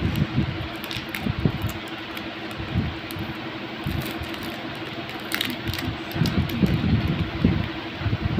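Foil and paper wrapper of a KitKat bar crackling in the hands as it is peeled open, with repeated low bumps of handling. A steady hum runs underneath.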